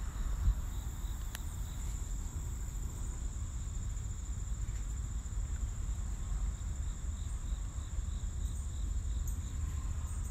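Insects trilling steadily on one high note, joined about halfway through by a fainter chirp repeating about three times a second, over a low rumble.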